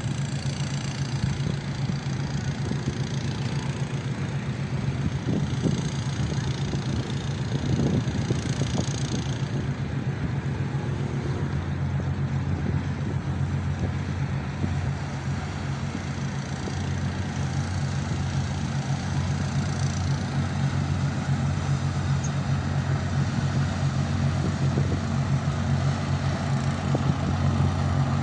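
A nearby boat's engine running steadily, a low drone that grows a little louder in the second half.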